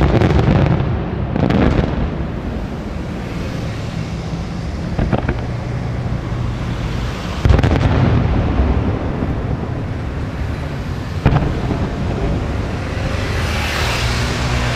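Aerial firework shells bursting: sharp bangs a few seconds apart, with a continuous low rumble between them and a hissing crackle building near the end.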